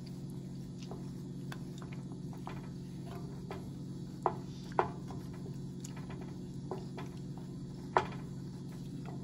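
Wooden spatula stirring liquid in a metal saucepan, clicking and scraping against the pan, with sharper knocks twice at about four and five seconds in and once near the end, over a steady low hum.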